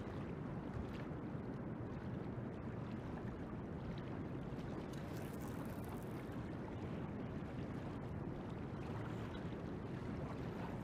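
Steady rushing of a river's current flowing past waders standing in it, an even wash of water noise.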